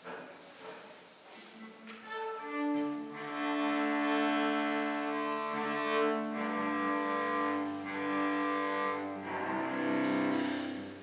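Violin and cello playing slow, sustained notes, beginning about two seconds in and stopping just before the end.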